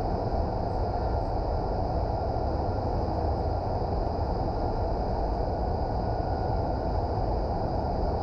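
Indoor vertical wind tunnel running: a steady, unbroken rush of air driven up through the flight chamber by its fans, with a faint high whine above it.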